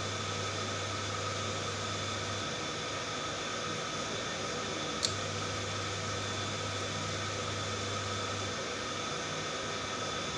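Pancakes cooking in a covered frying pan on the hob: a steady hiss, with a low hum that cuts in with a sharp click about every six seconds and drops out again a few seconds later, the way an electric hob cycles its heat.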